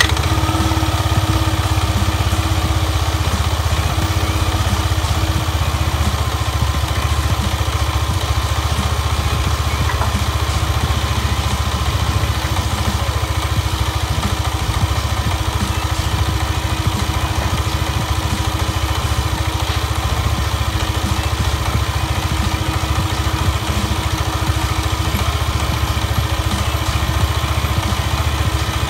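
Yamaha Aerox scooter engine idling steadily with the CVT cover off, the drive pulley and belt spinning exposed while the clutch stays disengaged.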